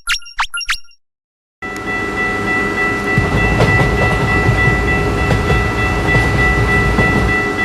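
A few quick bright dings in the first second, then a short gap. After that a train runs with a loud low rumble and a steady high tone over it, and the sound cuts off suddenly near the end.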